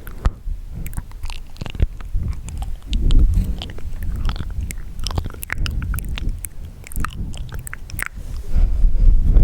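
Close-miked wet mouth sounds: a dense stream of sharp clicks and smacks from the lips and tongue, over soft low swells.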